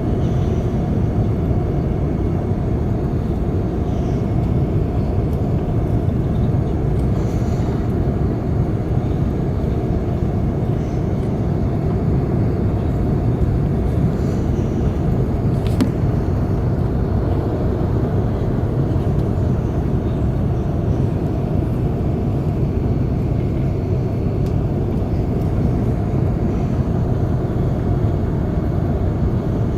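Steady low cabin roar inside the upper deck of an Airbus A380 on approach: engine and airflow noise, even in level throughout.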